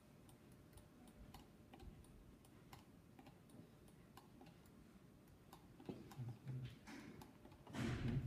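Faint, scattered clicks of a computer mouse and keyboard as a 3D model is turned in the software, with a brief louder noise about six seconds in and again near the end.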